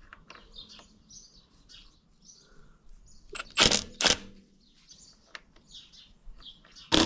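Faint bird chirping, with two loud, sharp knocks about three and a half and four seconds in from tools and parts being handled at a slurry tanker's vacuum pump.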